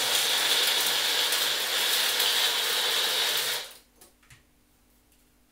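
Small personal blender running, whizzing a wet jerk-seasoning paste of spring onion, oil and vinegar, then cut off after nearly four seconds.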